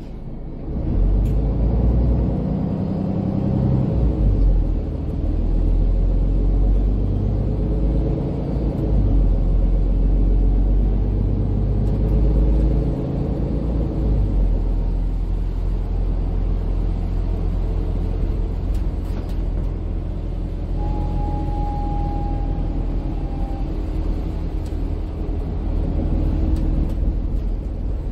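Cabin noise inside a MAN Lion's City 12C EfficientHybrid city bus under way: a steady low rumble of engine and road that swells about a second in as the bus pulls away. A brief high tone sounds for about two seconds around two-thirds of the way through.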